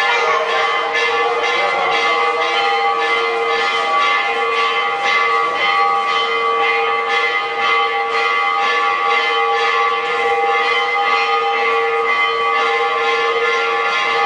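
Church bells ringing continuously, struck over and over in quick succession, so that their tones overlap into a steady ringing.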